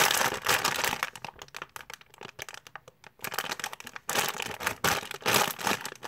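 Crinkly plastic packaging bag of a squishy being handled, crackling in two spells: for about the first second and again from about four seconds in, with a quieter stretch between.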